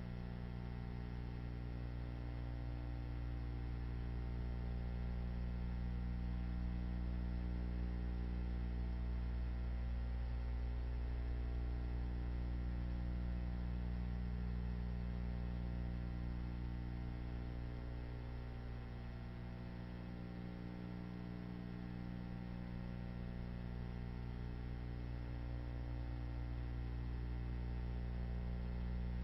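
Steady low electrical hum with a stack of overtones over a faint hiss; no other sound.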